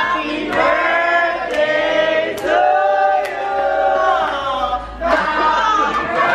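A group of people singing a birthday song together, with long held notes and short breaks between phrases.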